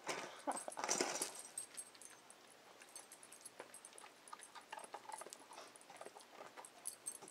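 Hens pecking kibble from a steel dog bowl alongside a feeding dog: rapid, irregular clicks and taps of beaks and food on metal. A louder rush of noise in the first second and a half.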